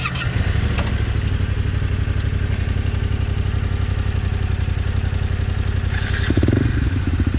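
Yamaha Ténéré 700's parallel-twin engine idling steadily with an even low pulse, and a brief louder stretch a little past six seconds in.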